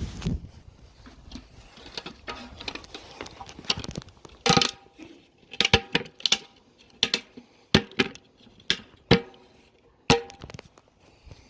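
A series of sharp clicks and knocks, some with a brief ring, about a dozen in all and mostly in the second half: hard plastic and metal parts of a top-loading washing machine being handled during disassembly.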